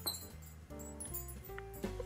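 Background music: soft held notes over a bass line, changing every half second or so.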